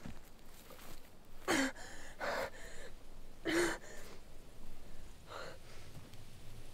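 A woman gasping for breath in ragged gasps, each with a strained voiced catch: three loud gasps within the first four seconds and a fainter one later.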